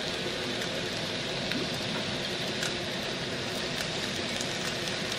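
Beef shank slice searing in hot oil in a pan: a steady sizzle with faint crackles.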